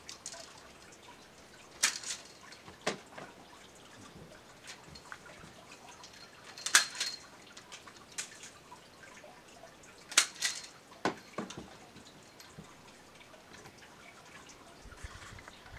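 Sharp snaps of a long-handled pruner cutting branches in a Bartlett pear tree: about half a dozen scattered cuts, the loudest about seven and ten seconds in.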